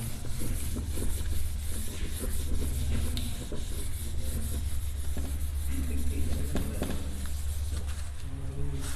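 Scratchy handwriting strokes, irregular and faint, as a maths problem is written out, over a steady low hum.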